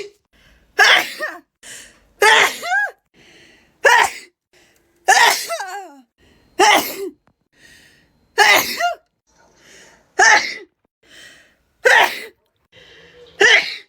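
A person sneezing over and over in a fit, about nine loud sneezes roughly a second and a half apart, with a softer sound just before each one.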